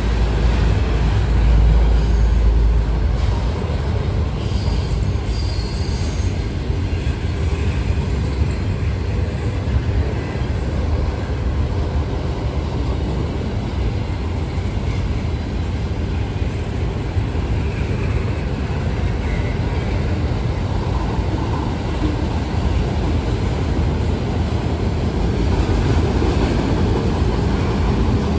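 Double-stack intermodal freight train of container well cars rolling past close by: a steady rumble and rattle of wheels and cars on the rails, heaviest in the first few seconds.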